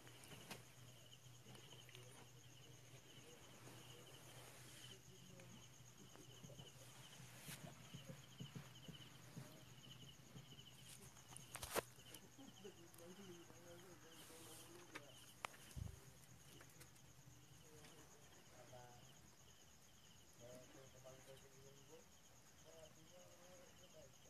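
Near silence with the faint, steady chirping of crickets and a low hum underneath. There is a sharp click about twelve seconds in, and a few softer knocks.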